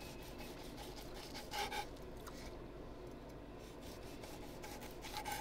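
Chef's knife sawing through a seared steak's crust on a wooden cutting board: faint, repeated rasping strokes as the blade works back and forth.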